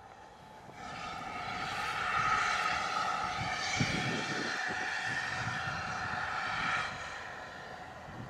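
Steam hissing loudly from GWR pannier tank locomotive 1501 as it stands with a white plume rising from it: the hiss swells in over the first couple of seconds and drops away suddenly about seven seconds in.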